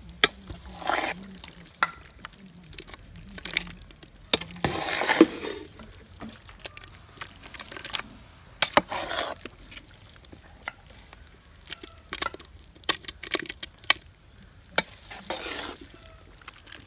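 A long metal spatula stirring thick, freshly dum-cooked tapioca-and-meat biriyani in a large metal pot: irregular sharp clicks and scrapes of metal on the pot, with soft wet squishes of the mixture every few seconds.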